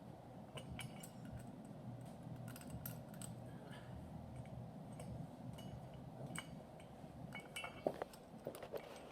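Light metallic clinks and knocks, scattered and irregular, as the metal parts of an anvil grip implement and its loading pin are handled and fitted together, with one sharper knock near the end.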